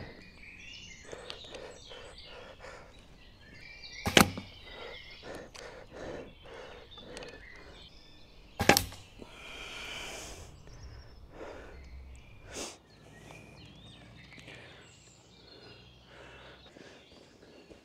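Recurve bow shots: two sharp cracks about four and a half seconds apart, each the string's release and the arrow striking the target, with a fainter knock a few seconds later and light knocks and rustling in between.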